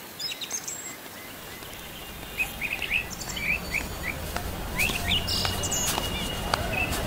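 City-park sound-effect ambience: many birds chirping over a low, steady city rumble that fades in and grows louder. A thin, steady high tone joins near the end.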